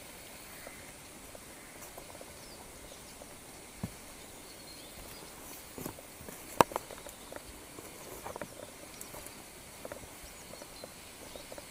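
Footsteps on a forest trail and leaves brushing past: scattered soft crackles and taps, the sharpest a little past halfway, over a faint steady outdoor background.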